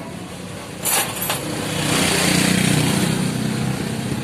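A small engine running steadily, with two sharp clicks about a second in and a louder rush of noise in the middle.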